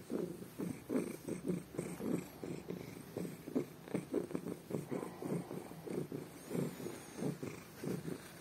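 Tabby cat purring loudly in a steady, rhythmic pulse that swells and fades with each breath, a purr of pleasure while its ears are rubbed.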